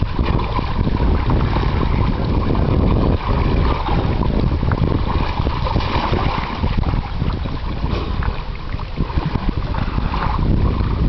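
Wind buffeting the microphone in a loud, steady rumble, over sea water splashing and sloshing.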